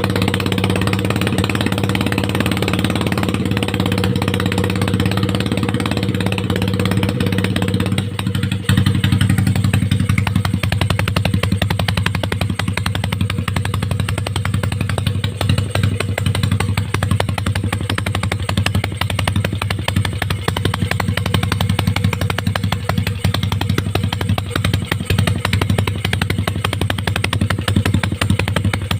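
Yamaha Mio i 125 scooter's single-cylinder four-stroke engine running through an open pipe exhaust, idling steadily; about eight seconds in its note turns rougher and slightly louder.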